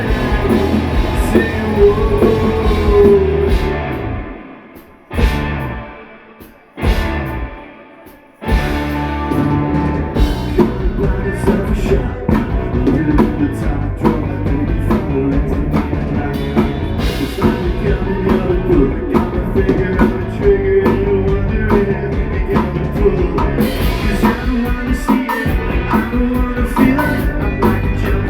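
Rock band playing live, with electric guitars, bass and drum kit, heard loud in a club. About four seconds in the band stops and hits two short accents that ring off, then comes back in at full volume about four seconds later and plays on.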